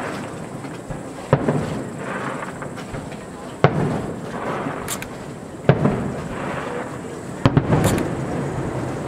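Aerial firework shells bursting high overhead: a sharp bang about every two seconds, each trailing off in a rolling rumble, with a quick cluster of three bangs near the end.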